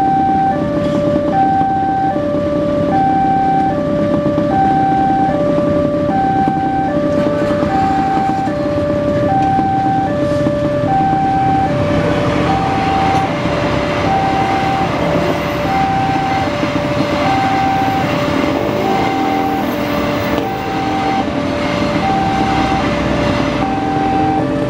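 Railway level crossing's electronic warning alarm sounding a steady two-tone signal, a higher then a lower tone, repeating about once a second. About twelve seconds in, the noise of a passing passenger train and its diesel locomotive rises beneath the alarm and carries on.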